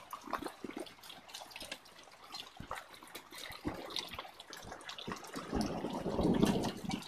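Hail falling with rain: a dense run of small hailstones striking the patio, pots and plants in quick, irregular ticks over a wash of rain noise. Near the end a louder stretch of lower rushing noise comes in for about a second and a half.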